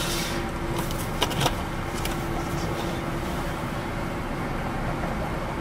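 Steady car-cabin noise of the running engine and air-conditioning fan, with a steady hum, and a few short clicks in the first second and a half.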